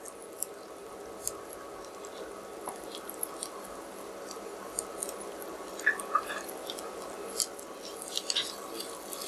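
Onion and spice masala frying in oil in a non-stick pan: a low, steady sizzle with scattered small crackles, while a spoon and a silicone spatula stir through the soft mixture.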